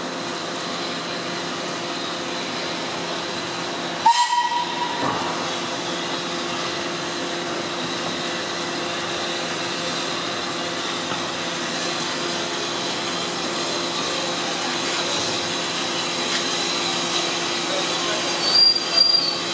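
Steam locomotive whistle, LSWR M7-class 0-4-4T tank engine No.30053, giving one short blast of about a second, about four seconds in, as the engine moves slowly. A steady background hiss and hum runs under it, with a few louder bumps near the end.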